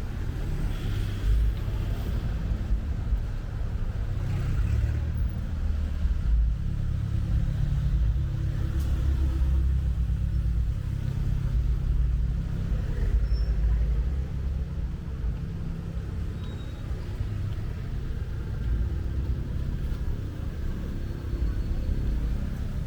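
Steady low rumble of city street traffic, rising and falling a little, with faint scattered street sounds above it.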